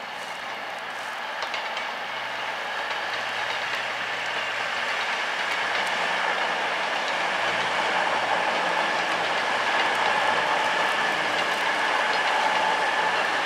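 Train running along the tracks, its steady rumble and wheel noise slowly growing louder, with a steady whine in it.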